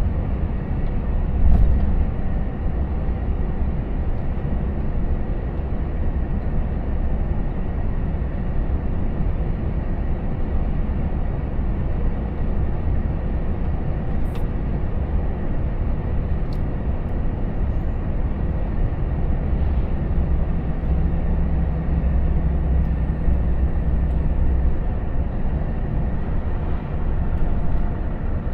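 Volvo FH 460 truck's 13-litre six-cylinder diesel running steadily at cruising speed, heard from inside the cab as a low drone mixed with tyre and road noise. A brief louder jolt comes about a second and a half in.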